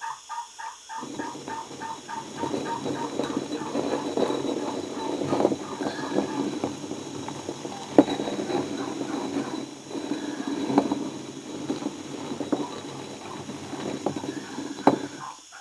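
Stone hand quern being turned to grind grain: a steady rough stone-on-stone rumble that starts about a second in, with a couple of sharp knocks along the way.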